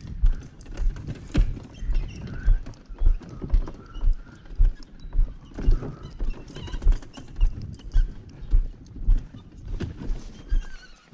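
Footsteps walking down a concrete boat ramp, about two steps a second.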